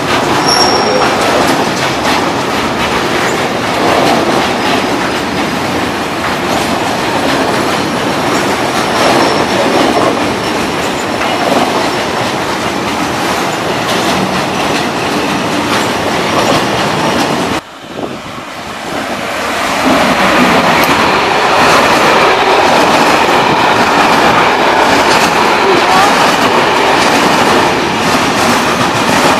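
Freight trains rolling past close by, wheels clattering on the rails: first a train of tank wagons, then, after a sudden brief drop about two-thirds through, a container train whose noise builds back up and stays loud.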